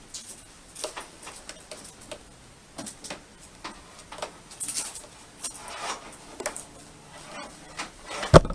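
Irregular light clicks, taps and rustles of small objects being handled. Near the end comes a louder bump as the camera is picked up.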